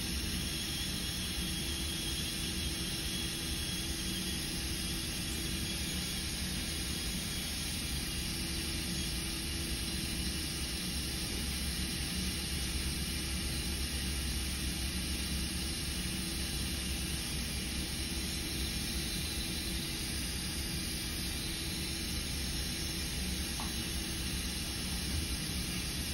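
Steady hiss with a low mechanical hum beneath it, unchanging, from equipment running in the room.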